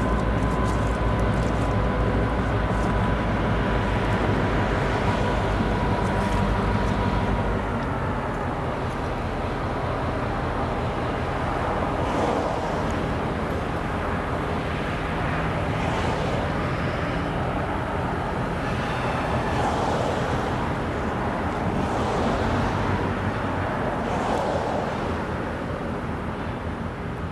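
EMD GP38-2 diesel-electric locomotive, a 16-cylinder two-stroke, running under power as it pulls covered hoppers away. The engine note eases about eight seconds in, then stays steady and slowly fades as the train draws off.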